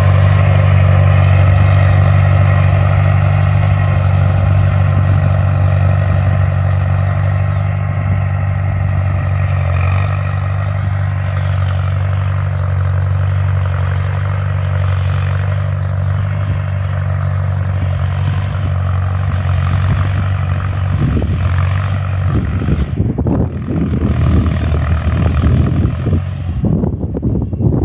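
International 140 tractor engine running steadily. It fades out about three-quarters of the way through, and wind buffets the microphone after that.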